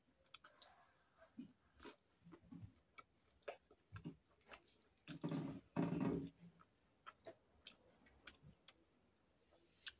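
Faint close-up eating sounds: a person chewing soft momo dumplings, with small mouth clicks and smacks, and a couple of louder chewing sounds about five to six seconds in.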